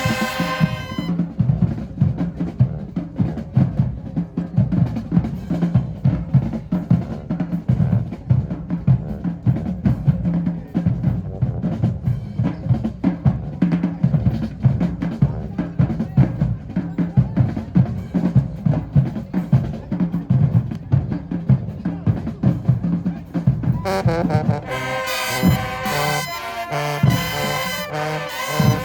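High school marching band: a held brass chord cuts off about a second in, then the drumline plays a percussion cadence on snare and bass drums. The brass comes back in near the end.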